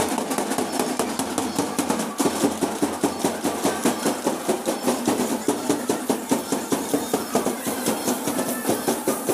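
Many wooden sticks clacked together by a marching group of girls, a steady run of sharp clacks about four or five a second.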